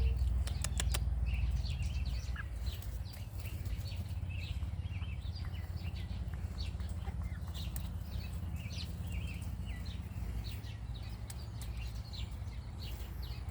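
Birds chirping: many short, high chirps, scattered irregularly throughout, over a steady low rumble, with a few sharp clicks in the first second.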